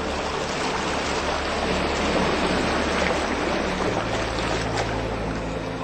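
Steady rushing of water, like a stream or surf, over a low held ambient music drone whose note changes about four seconds in.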